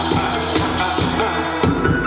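Music with a steady, punchy drum beat and deep bass.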